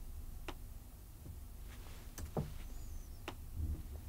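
About six faint, scattered clicks of a computer mouse and keyboard over a low steady hum, as a value in a software field is selected and retyped.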